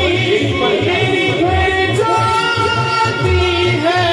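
A hamd, an Islamic devotional song of praise, sung by a male lead vocalist through a microphone and PA, with backing singers joining in on held notes over a pulsing low beat.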